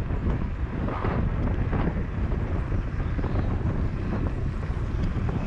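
Wind noise on the microphone of a camera riding on a moving bicycle: a steady low rumble with a hiss above it.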